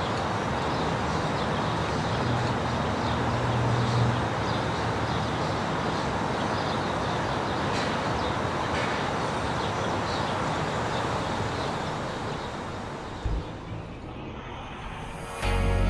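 Car driving on city streets: a steady mix of tyre and engine noise that eases off in the last few seconds, with a brief low thump shortly before music starts right at the end.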